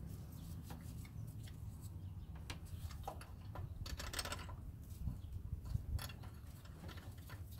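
Scattered light metallic clicks and taps as a new belt tensioner and its bolts are handled and set into place on the engine, with a short scraping hiss about four seconds in, over a low steady hum.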